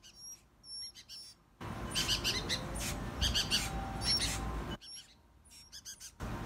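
Small songbirds chirping in quick, high-pitched calls, repeated in short groups, with a low rumble on the microphone through the middle of the stretch.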